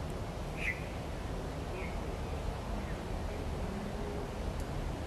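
Outdoor garden ambience: a steady low rumble with a few short bird chirps, one about a second in and another near two seconds.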